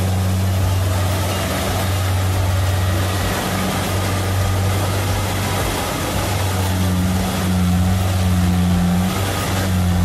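Kubota DC70 combine harvester's diesel engine running steadily as it cuts and threshes rice: a deep, constant hum with a dense rush of machinery noise over it.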